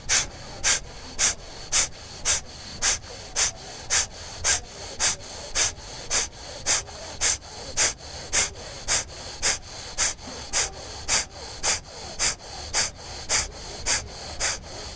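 Kapalbhati pranayama through the right nostril, the left held closed: short, forceful nasal exhalations at an even pace of just under two a second, with passive inhalations between.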